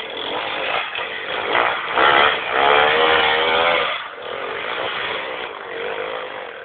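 Enduro dirt bike engine revving hard under load as the bike climbs a muddy slope, loudest and rising in pitch from about two to four seconds in, then easing off.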